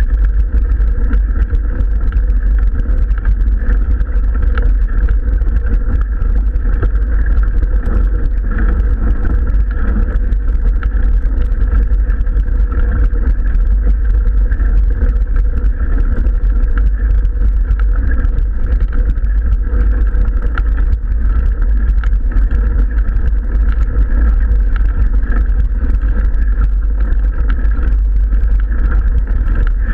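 Loud, steady low rumble of wind buffeting and road vibration on a mountain bike's action-camera microphone as the bike climbs a gravel road.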